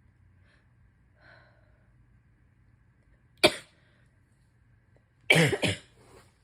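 A person sick with a cold coughing: one sharp, short cough about three and a half seconds in, then a longer, voiced cough of two or three quick hacks near the end.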